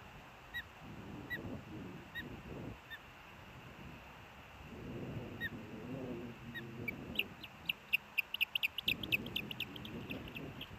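Osprey calling: short whistled chirps spaced under a second apart, then from about two-thirds in a fast, louder run of rising chirps, the excited calling as the mate flies in to the nest. A low rumble comes and goes underneath.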